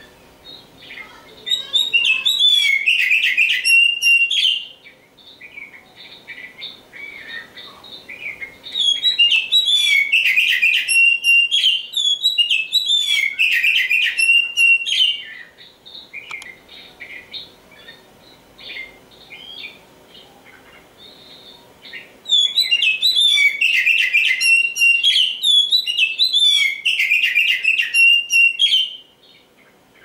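Oriental magpie-robin (kacer) singing: three long, loud bouts of rapid, varied whistled phrases, with softer scattered notes in the gaps between them.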